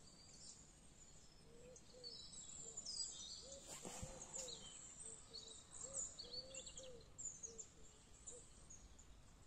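Faint outdoor birdsong: small birds chirping and twittering, over a lower series of short, soft, repeated calls. A single soft knock about four seconds in.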